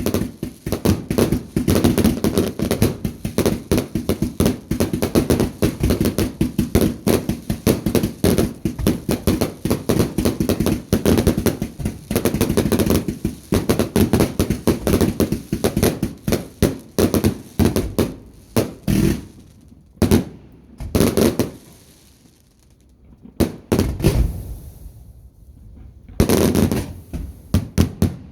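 Fireworks going off in a rapid, dense barrage of cracks and bangs, thinning after about eighteen seconds to scattered bangs with short pauses between them.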